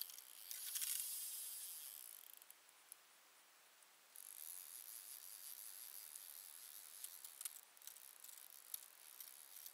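Fishing reel whirring in two spells, a louder one near the start and a steadier one from about four seconds in, with small ticks, as a fish pulls against the hard-bent rod.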